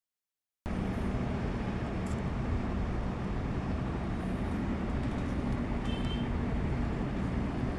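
A moment of dead silence, then from well under a second in a steady background hiss with a low hum at an even level, broken only by a couple of faint ticks and a brief faint high tone about six seconds in.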